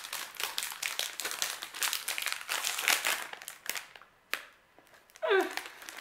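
Plastic snack packet of protein crackers crinkling and crackling as it is handled and opened, for about four seconds, followed by a single sharp click.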